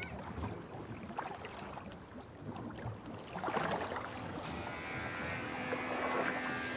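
Faint background noise with a few scattered knocks, then about four seconds in a steady machine hum with several held tones sets in: a motor running.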